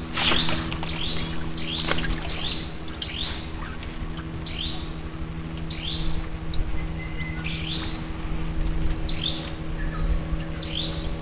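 A bird calling over and over with short chirps that sweep upward in pitch. The chirps come quickly at first, then slow to about one every second or so. A steady low hum runs underneath.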